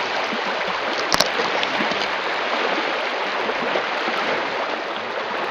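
River water rushing past a moving boat: a steady, even hiss of moving water, with a short knock about a second in.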